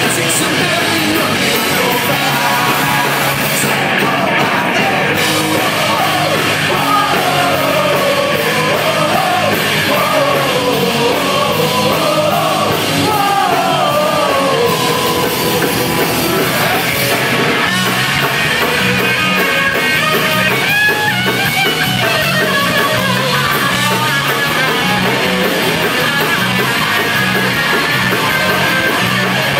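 Live rock band playing loud through the venue's PA, with electric guitar, bass, drums and a singer, heard from the audience through a phone's microphone. A sung melody stands out in the first half, and a steady bass-and-drum pulse carries the second half.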